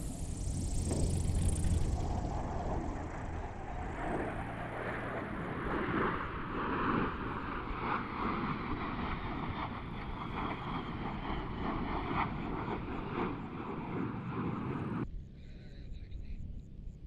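A single-engine propeller STOL plane is heard for the first second or two. After that comes steady jet engine noise from two jet aircraft flying overhead in formation, which cuts off abruptly about fifteen seconds in.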